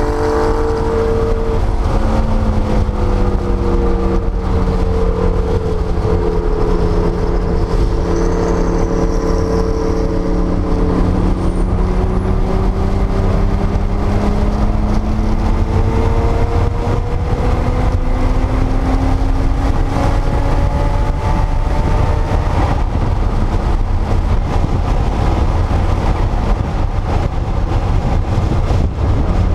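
1979 Porsche 930 Turbo's air-cooled turbocharged 3.3-litre flat-six running under load, heard from inside the cabin. Its note sinks and then climbs slowly over long stretches, above a steady low rumble of road and wind noise.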